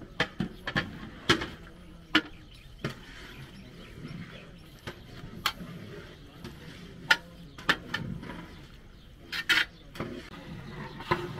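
Irregular clatter of cooking pots and utensils: a dozen or so sharp knocks and clinks, some with a brief ring, over a low background murmur.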